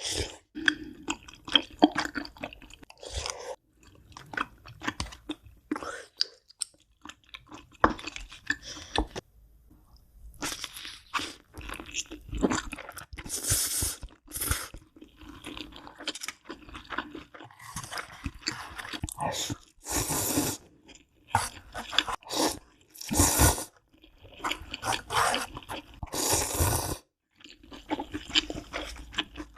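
Close-miked mukbang eating sounds: crunchy bites and chewing in irregular runs of crackling crunches, with short pauses between mouthfuls.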